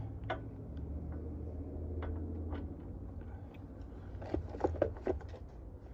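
Hand tools clicking and scraping against a pickup's front wheel hub assembly while its mounting bolts are torqued down. There are scattered light clicks, then a quick run of sharp clicks about four seconds in, over a low steady hum.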